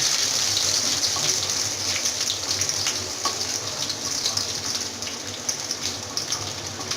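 Hot oil sizzling in a pan as green chillies fry with chopped garlic and onion in a baghar (tempering), with scattered crackles. Loudest at first, easing off gradually.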